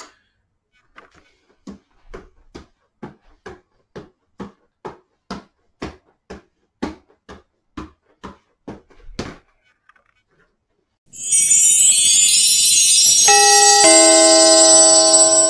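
Three soft footballs being juggled, each one slapping into a hand as it is caught, about two catches a second, stopping about nine seconds in. Then a loud shimmering intro sound effect with a falling two-note chime like a doorbell ding-dong.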